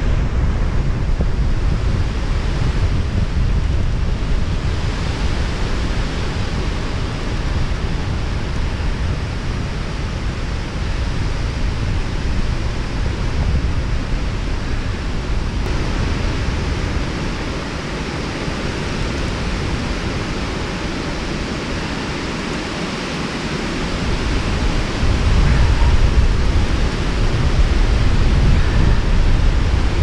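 Wind buffeting the microphone: a steady rushing noise with a heavy, fluttering low rumble that eases for several seconds past the middle and gusts up again near the end.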